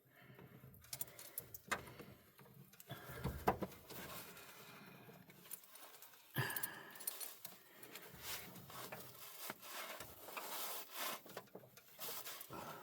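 Irregular metallic clinks, taps and rubbing as a battery ground-cable clamp and its fittings are handled and worked onto the terminal, with a sharper knock about three and a half seconds in.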